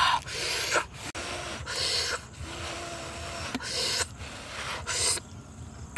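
A person eating, with a series of short, hard breaths through the mouth, blowing out and sucking in air about once a second, and a short hummed "mmm" near the middle.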